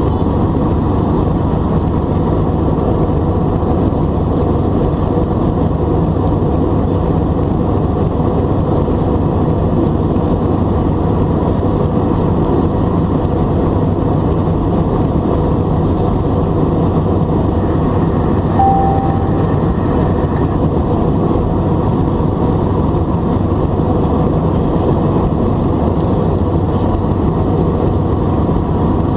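Steady cabin noise of an Airbus A320 in the climb: its CFM56 turbofans at climb thrust and airflow rushing past the fuselage, heard from a window seat over the wing. A short single tone sounds about two-thirds of the way in.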